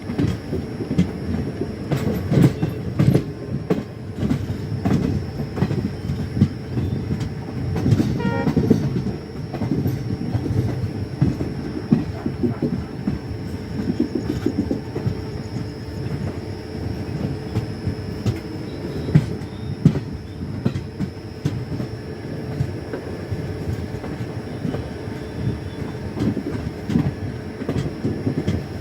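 Passenger train running at speed, its wheels rumbling and clattering over the rail joints.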